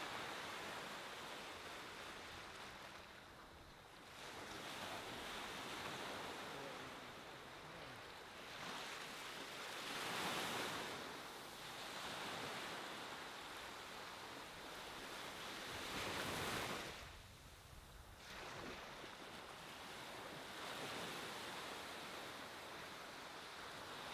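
Gentle ocean surf washing up on a sandy beach, rising and falling in slow swells as each wave breaks and runs out. The loudest breaks come about ten and sixteen seconds in.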